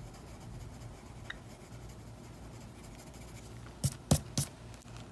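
Light 3H pencil shading on paper, a soft steady scratching of strokes. Near the end come three sharp taps in quick succession.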